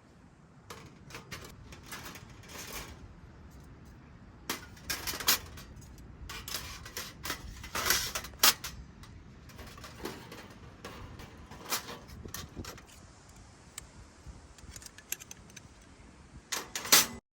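Scattered clicks, clinks and rustles of small hard objects being handled, with the loudest clatter near the end.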